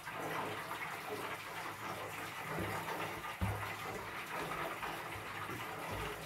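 Plastic-bagged hands rustling and scattering cornstarch over baklava dough on a countertop, with a few soft low thumps as the hands pat the dough, the sharpest about halfway through.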